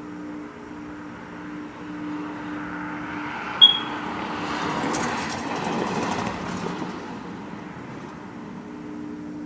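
A steady low droning hum of a few held tones, the unexplained siren-like noise. About three seconds in it is drowned by the rising and fading rush of a passing vehicle, with one short sharp high chirp at the start of the rush.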